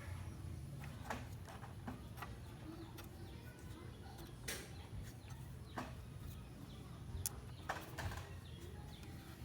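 Scattered light metal clicks and taps, about eight in all at uneven intervals, as a brake caliper's pin lock and clip are fitted, over a steady low background rumble.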